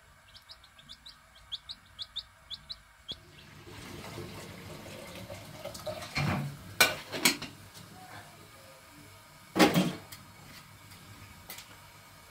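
Chicks peeping in short, high, rising chirps, a few each second, during the first three seconds. After that a steady hiss, with a few loud clatters of a metal pot and utensils at the stove, the loudest near the end.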